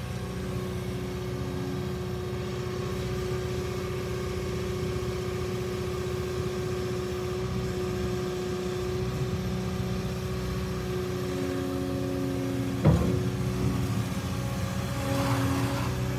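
Caterpillar 236D skid steer loader's diesel engine running steadily with a steady whine as the machine drives and works its loader arms. A single sharp clunk comes late on.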